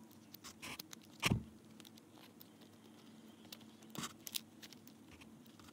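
Plastic parts of a large Bakugan Battle Planet toy clicking and knocking as they are handled and folded into shape, with scattered light clicks, one louder knock about a second in and another about four seconds in.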